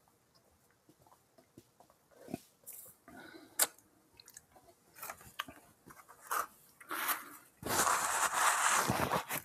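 Faint mouth clicks and swallows while sipping a thick milkshake through a straw. Near the end comes about two seconds of louder rustling as a paper napkin is rubbed over the mouth.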